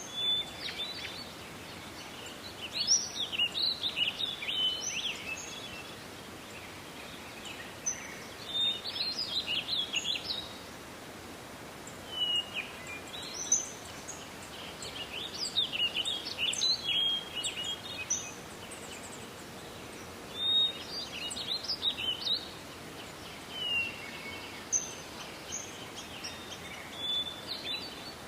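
A songbird singing short, busy phrases over and over, a new phrase every few seconds, over a steady hiss of forest background noise.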